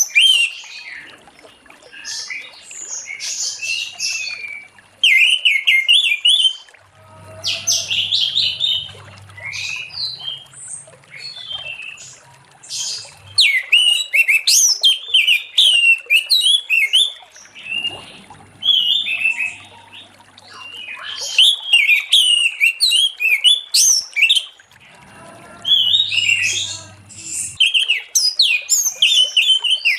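Orange-headed thrush singing a loud, varied song of rapid whistled phrases and chips, delivered in bursts of a few seconds with short pauses between.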